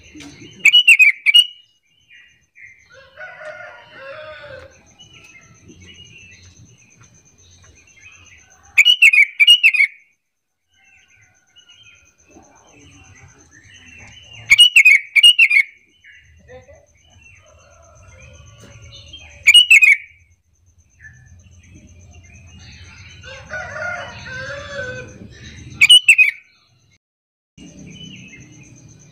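Sooty-headed bulbul (kutilang) calling: five loud phrases of quick falling whistled notes, each lasting about a second and spaced several seconds apart, with fainter sounds between them.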